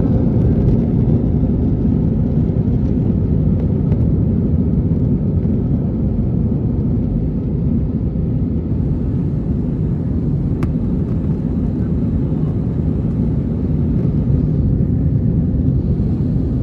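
Jet airliner cabin noise during the climb after takeoff: a steady, low rumble of engines and rushing air heard from a window seat.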